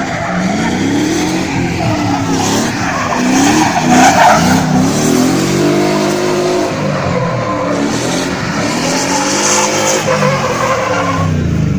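A drift car's engine revving up and down over and over while its tyres skid and squeal. It is loudest about four seconds in.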